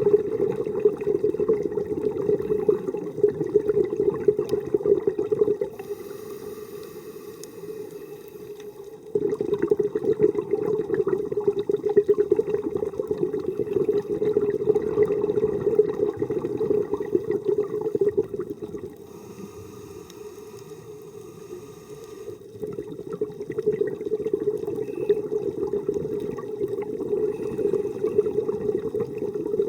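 Scuba diver breathing underwater through a regulator: long stretches of crackling, bubbling exhaust bubbles, broken twice by quieter spells with a faint hiss of the inhale.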